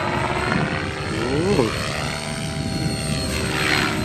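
Align T-REX 700E electric RC helicopter flying, with the rotor and the electric motor and gear drivetrain whining steadily. The pitch sweeps up and down as it manoeuvres. The drivetrain gears are under test.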